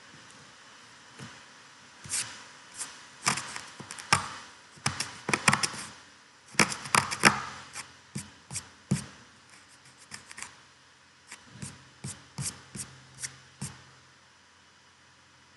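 Irregular sharp clicks and taps in quick clusters, from about a second in until near the end, over a faint steady hiss.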